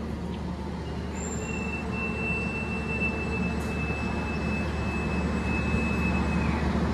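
A departure whistle blown as one long steady high note, starting about a second in and lasting about five seconds: the signal for the standing train to leave the station. Beneath it the standing train's steady low hum.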